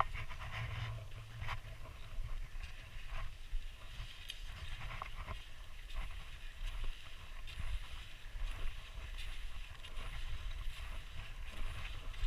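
Skis sliding through fresh snow with a steady hiss, wind rumbling low on the microphone, and scattered light knocks.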